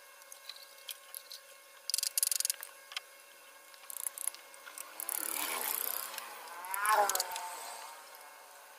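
Hand chisel cutting and paring the wood of a carved sofa armrest: scattered light clicks and ticks, then a longer scraping stretch about five seconds in and a louder squeaking scrape near seven seconds.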